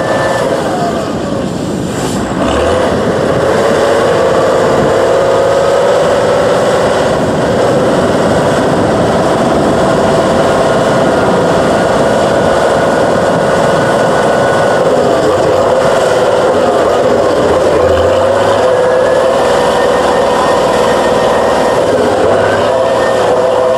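Diesel engine of a six-wheel-drive trial buggy running hard under load as it climbs a steep dirt slope. The revs dip briefly about two seconds in, then pick back up and hold with small rises and falls.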